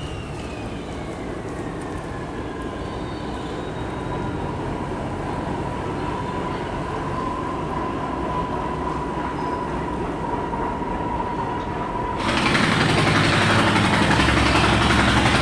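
Boat engine running steadily under a whine that falls in pitch over the first couple of seconds and then holds level. About 12 seconds in, the sound cuts to a louder rushing noise with engine rumble beneath.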